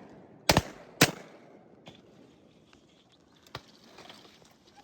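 Two shotgun shots about half a second apart, followed by a few faint clicks.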